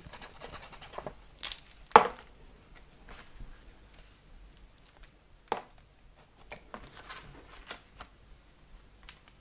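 Paper and card being handled: sheets of designer paper laid onto card stock and pressed and smoothed down by hand, with soft rustling and a few sharp taps. The loudest tap comes about two seconds in, another about halfway through.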